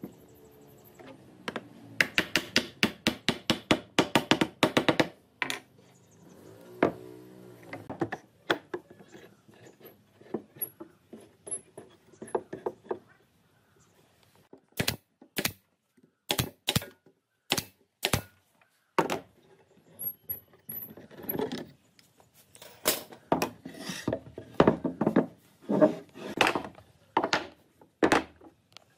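Knocks and taps on wooden joints as pine table-leg parts are fitted together with a hammer and a pipe clamp. There is a quick run of knocks early on, single sharp taps in the middle, and steady strikes about twice a second near the end.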